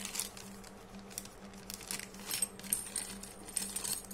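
Clear plastic packets crinkling and rustling as they are handled, in short scattered crackles.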